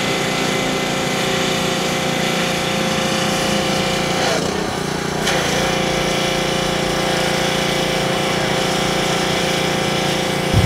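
An engine running steadily with an even drone, with a brief dip and wobble about four and a half seconds in.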